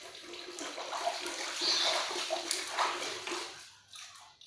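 Water running and splashing, stopping about three and a half seconds in.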